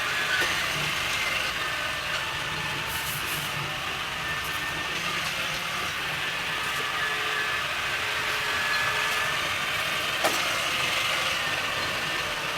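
Ainol A-S11 robot vacuum running in mopping mode, its motors making a steady whir with a faint high tone, and a single click about ten seconds in.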